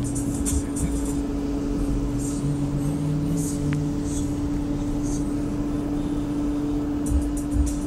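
Steady road and engine noise inside a moving vehicle, with a constant hum.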